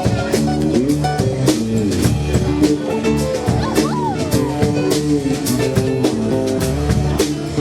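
A live band playing a song: drum kit keeping a steady beat under guitar and other held, pitched parts, with some sliding notes.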